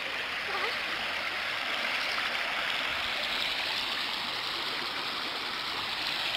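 Shallow river rushing over stones, a steady hiss of flowing water.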